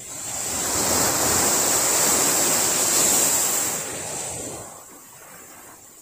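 A small sea wave breaking on the beach and washing up the shore: a rush of surf that builds over about a second, holds, then fades away about four to five seconds in.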